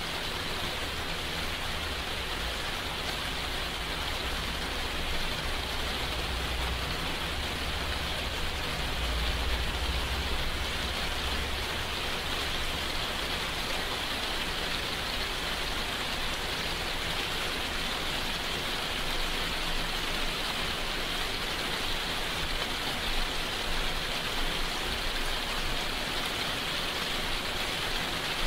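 Steady rainfall, a constant even hiss of falling rain, with a low rumble underneath for about the first twelve seconds.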